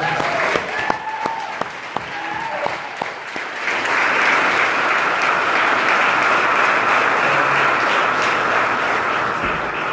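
A room full of people applauding. It starts as scattered sharp claps, some close by, with a few short calls, then swells about three and a half seconds in to dense, steady applause that dies down near the end.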